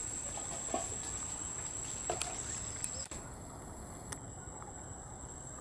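Outdoor ambience: a steady high-pitched insect drone over a background hiss, with a few faint soft clicks. The background drops abruptly about three seconds in.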